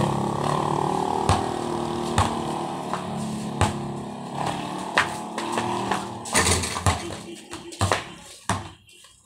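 A basketball bouncing on a concrete court, sharp knocks roughly a second apart with a few quicker ones near the end. Under them runs the steady hum of a vehicle engine, which fades away over the last few seconds.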